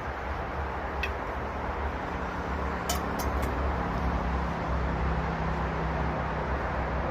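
Steady rumble and hiss of distant motorway traffic, with a low hum from one vehicle in the middle and a few light clicks about a second and three seconds in.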